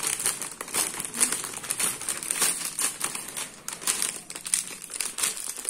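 A shiny plastic snack packet crinkling and crackling as it is handled and cut open with scissors: a dense, irregular run of crackles.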